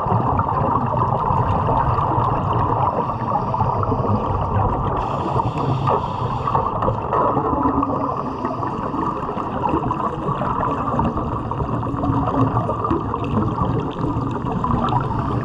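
Underwater wet stick welding: a steady, dense bubbling and crackling from the arc and the gas bubbles it throws off, heard through the water, mixed with the diver's exhaust bubbles.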